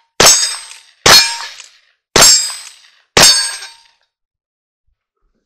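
Four sharp metallic clangs about a second apart, each ringing out and fading quickly: struck metal.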